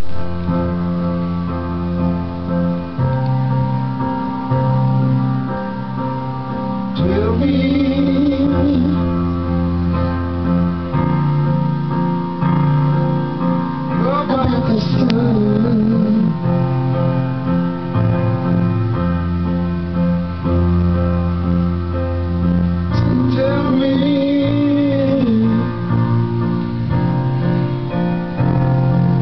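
A young girl singing along over keyboard-led backing music, her voice coming in three short sung phrases over the steady chords.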